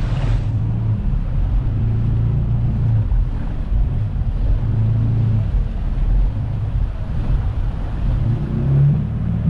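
Jet ski engine running at a steady speed, with wind and water noise.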